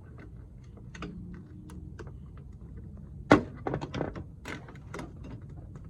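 Scattered clicks and knocks as a cold air intake's tube and rubber coupler are pushed and worked into place by hand, with one loud thunk a little past halfway.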